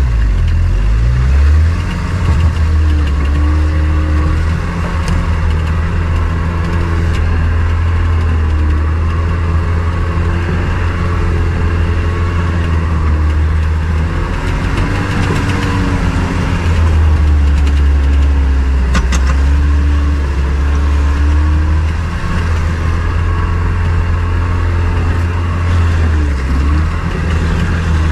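Motor vehicle engine running under way, a loud steady low drone with the engine note rising and falling several times as it drives.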